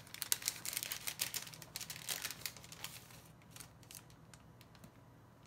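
Clear plastic packaging crinkling as a wrapped pack of paper is handled, a quick irregular run of crackles that dies away about three seconds in.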